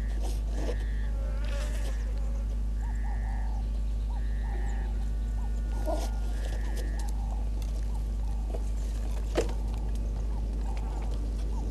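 Bushveld ambience through a wildlife camera's microphone: short buzzy calls repeating every second or two, scattered faint chirps, all over a steady low hum. One sharp click about nine seconds in.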